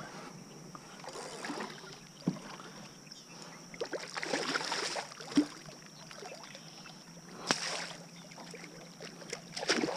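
Hooked redfish thrashing at the surface beside the boat, splashing the water in several rounds, with a few sharp knocks between.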